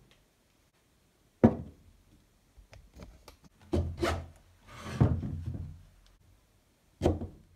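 Plastic angle-grinder motor housing handled on a wooden workbench: sharp knocks as it is set down on the boards, the loudest about a second and a half in, and a short scraping rub as it is turned, with one more knock near the end.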